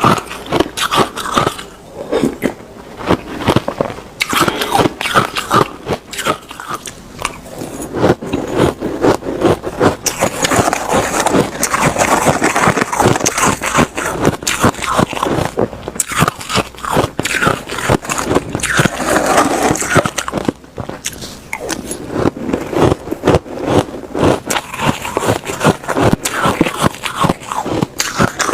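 Close-miked ice being bitten and chewed: a rapid, unbroken run of crisp cracks and crunches, coming in thick clusters every few seconds.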